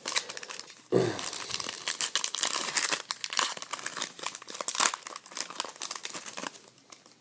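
The wrapper of an Upper Deck SPx hockey card pack is crinkled and torn open by hand: dense crackling that stops about six and a half seconds in.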